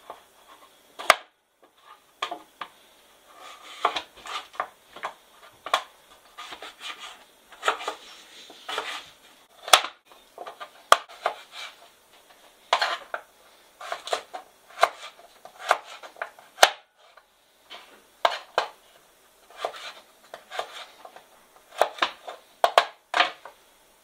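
Kitchen knife cutting a carrot into sticks on a plastic cutting board: irregular sharp knocks of the blade going through and striking the board, about one or two a second.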